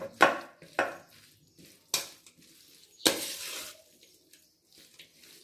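Spoon stirring carrot pieces through pickle masala in a pan: a few sharp clatters of spoon against pan, then a longer scrape about three seconds in.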